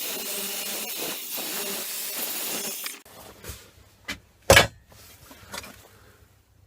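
Black & Decker electric belt sander, running at its single full speed because its speed controller is shorted out, cuts off about three seconds in. A few knocks follow, with one sharp clank of metal about a second and a half later.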